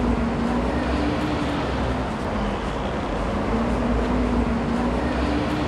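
City street ambience: steady traffic rumble with a low wavering hum.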